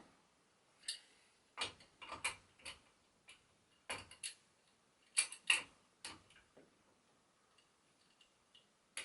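Light metal clicks and clinks of a spanner being worked onto a bicycle's headset top nut, about a dozen scattered taps over the first six or seven seconds.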